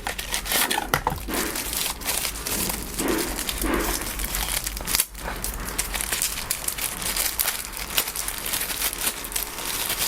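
Packaging crinkling and rustling in a run of irregular crackles as a tablet's power adapter is pulled out of its wrapping.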